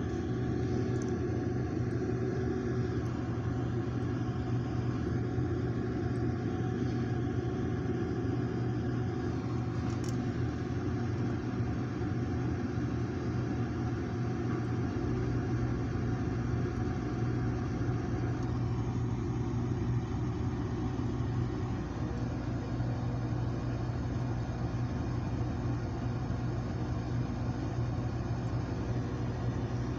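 A steady low hum and rumble, unchanging throughout, with a deeper rumble added about halfway through.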